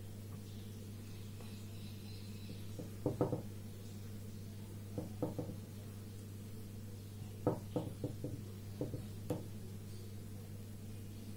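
Tan paper or fabric pieces and a cloth face mask being handled and fitted together on a table. Short clusters of rustles and light taps come about three seconds in, about five seconds in, and several more later on. A steady low hum sits underneath throughout.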